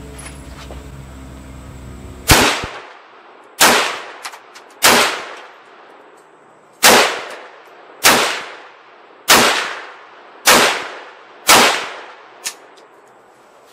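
Eight single shots from a PSA AK-P GF3 AK-47 pistol in 7.62x39, fired semi-automatically at an unhurried pace of roughly one a second, with a longer pause after the third. Each report is loud and fades off in echo.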